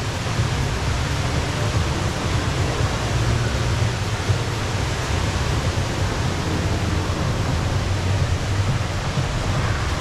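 Steady rush of falling water from a large indoor waterfall, Jewel Changi Airport's Rain Vortex, heard as an even noise heavy in the low end.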